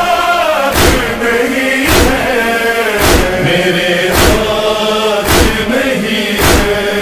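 A chorus of voices chanting a drawn-out, wordless lament melody in the manner of a noha, over a sharp percussive beat that comes about once a second.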